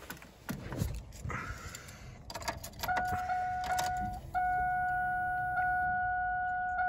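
Keys jingling and clicking as the key goes into the ignition of a 1999 Chevrolet Cavalier, then the car's steady warning chime tone. The tone breaks off briefly a few times and then holds steady from about four seconds in, with the key on before a cold start.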